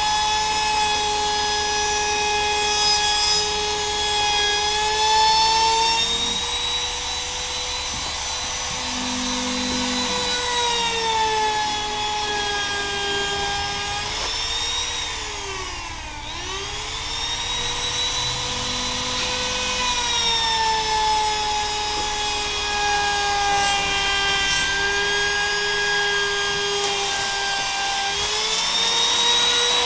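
Compact trimmer router running and cutting, trimming the overhanging edge of a glued-on countertop sheet flush. It is a high motor whine whose pitch wavers as the bit is loaded against the edge; about halfway through the pitch dips sharply and comes back up.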